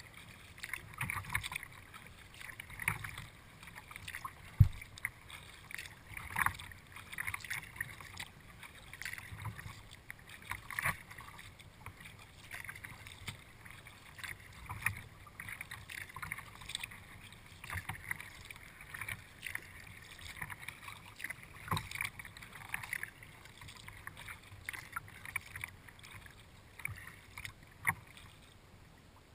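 Kayak paddle strokes dipping and splashing in the water, about one stroke every two seconds, with drips between strokes. A single sharp knock about four and a half seconds in. The strokes die away near the end.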